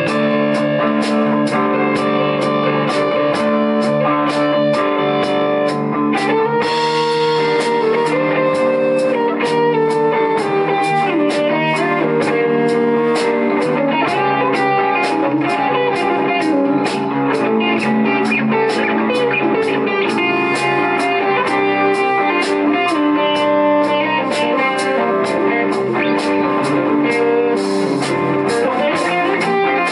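Live band playing an instrumental passage: two electric guitars over bass guitar and drums, with cymbals ticking in a steady beat. The cymbals swell louder about seven seconds in and again near the end.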